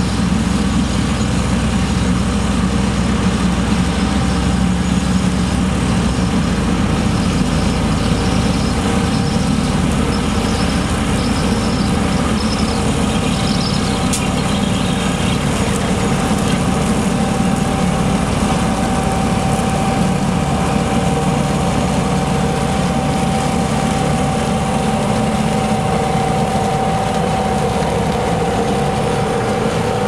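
Tractor engines running steadily under load as a Grimme GZ 1700 potato harvester works, pulled by a Case IH Puma CVX 130 with a Claas Ares tractor alongside. A steady whining tone grows stronger in the second half, and there is one sharp click about halfway through.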